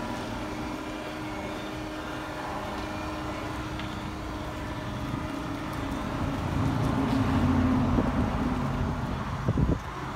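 A camper van's electric roll-out awning extending: a steady motor hum with several steady tones that grows louder past the middle. A couple of sharp knocks come near the end.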